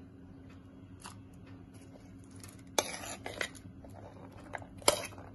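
A metal spoon scraping and clinking against a ceramic plate as chopped fruit is pushed off it into a bowl of whipped cream. It is mostly quiet at first apart from a faint steady hum, then a few short scrapes and clicks from about halfway.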